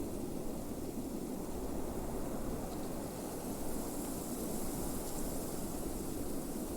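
Blizzard wind blowing steadily, a low rushing with a fainter hiss above it and no gusts or breaks.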